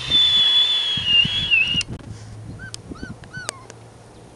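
Beagle puppies whining: one long, high whine of nearly two seconds that wavers lower at its end, then a handful of short rising-and-falling whimpers.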